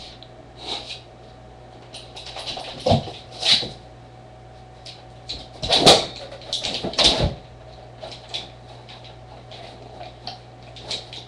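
A Weimaraner's paws thumping and scrabbling on a door and then on a bed as she pounces, in a few separate knocks and scuffs. The loudest come about six and seven seconds in, over a steady low hum.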